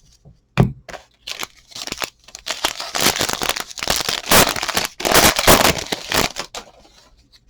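Plastic trading-card pack wrapper crinkling and tearing as it is ripped open and handled, a dense irregular crackle that fades out near the end.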